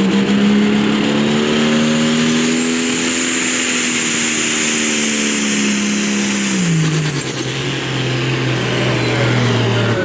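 International Harvester 5488 pulling tractor's diesel engine running flat out under load as it drags the sled, a steady high engine note with a faint high whistle above it. About seven seconds in the engine note drops sharply and runs on lower as the pull ends.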